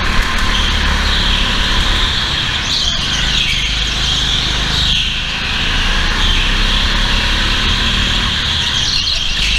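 Go-kart running at race pace, heard from a camera mounted on the kart: a steady drone with a high whine that rises and falls through the corners.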